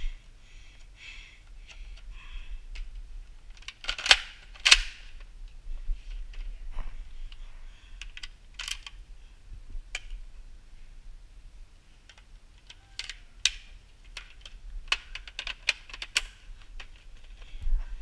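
Irregular light clicks and knocks from a Nerf blaster and a body-worn camera being handled on the move, with two sharper knocks about four seconds in and a quick run of clicks later on.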